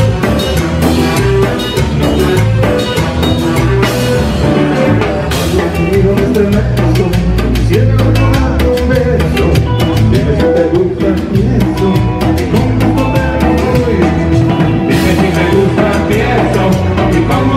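Live band music: a drum kit keeps a steady beat under sustained melody lines.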